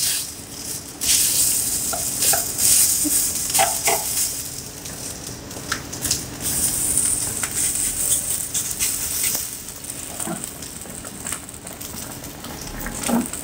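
Thin slices of raw beef sizzling on the hot grill plate of an electric hotpot-and-grill pan, a steady high hiss. Light clicks of wooden chopsticks come now and then as slices are laid down and moved.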